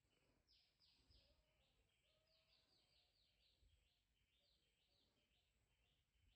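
Near silence, with a faint run of quick, high chirps, each falling in pitch, several a second.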